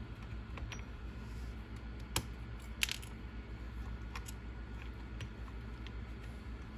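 Small metal parts (screws, nuts and aluminium steering bell crank pieces) clicking and clinking as they are handled, with two sharper clinks a little after two seconds and near three seconds, over a steady low hum.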